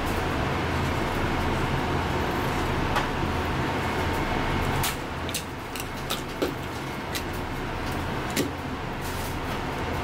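Kitchen knife cutting along a flathead fish on a plastic cutting board, with short sharp clicks and taps of the blade, most of them in the second half. A steady low hum runs underneath and eases off about halfway.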